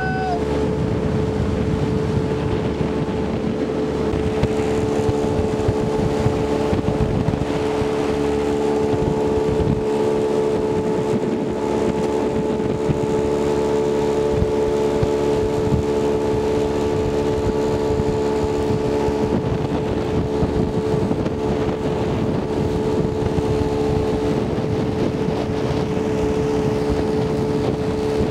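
Boat's outboard motor running at a steady speed while the boat is under way, a constant hum with no change in pitch.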